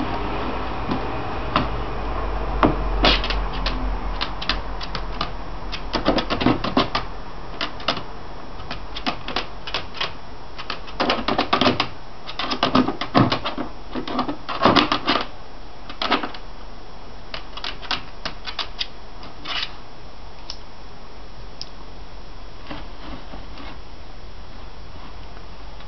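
Shiba Inu pawing at an upturned plastic laundry basket: irregular bunches of sharp clicks and clatters of claws on hard plastic, dying away to a few scattered clicks in the last several seconds.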